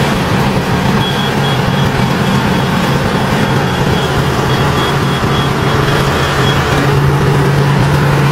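Tractor engine running steadily under load while it pulls a rotary harrow through a flooded rice paddy. A faint, high, intermittent beeping comes in about a second in and stops past the middle.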